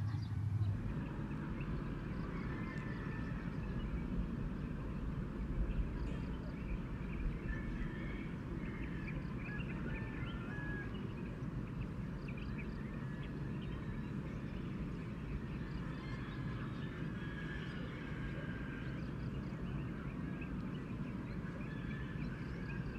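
Outdoor ambience: scattered short bird chirps over a steady low background rumble.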